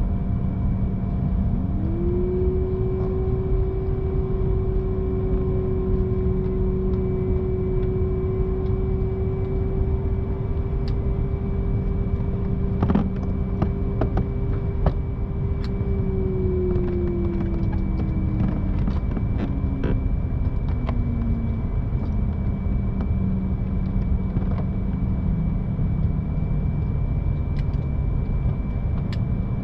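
Steady rumble of airliner cabin noise with a low hum beneath it. A humming tone rises about two seconds in, holds steady, then slowly slides down in pitch between about 16 and 22 seconds in. A few light clicks come around 13 to 15 seconds.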